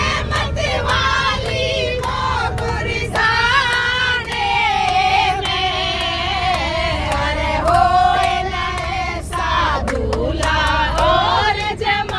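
A group of women singing a Hindi devotional bhajan together, with hand claps keeping time, over the low rumble of a moving bus.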